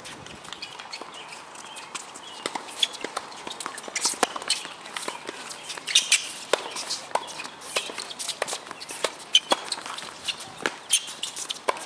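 Tennis doubles rally on an outdoor hard court: the ball is struck by rackets and bounces, with sharp irregular knocks, while players' shoes patter and scuff on the court surface.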